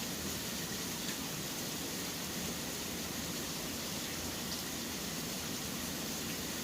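Steady rain hissing over a low, even city rumble, with a few faint drip ticks.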